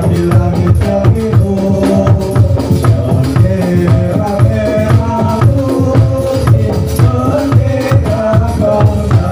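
Kubro siswo dance accompaniment music: a steady drum beat with a melody over it, playing on without a break.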